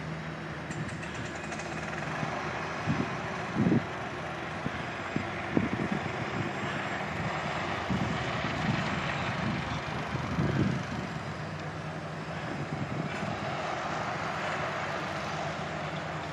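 Steady low rumble of vehicles, from the tram rolling over its grassed track and from road traffic, with a few short low thumps, the strongest about four seconds in and again near ten seconds in.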